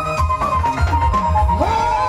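Batak Simalungun gondang music: drumming on a row of hide-headed tuned gondang drums with sticks, with repeated low beats under a held melody line that bends and slides upward near the end.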